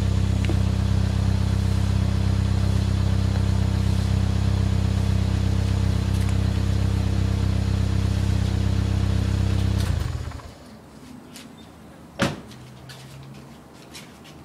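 Toyota Corona engine idling steadily through its Hyper exhaust, then cutting off abruptly about ten seconds in. A single sharp click follows a couple of seconds later.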